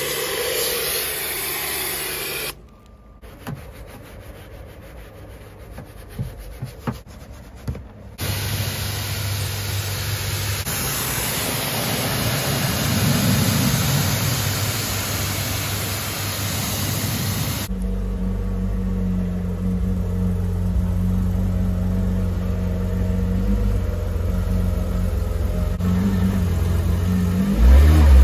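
Porsche 997 GT3's flat-six engine idling steadily through the second half, with a rev starting near the end. Before that comes a quieter spell with a few clicks, then a steady hiss.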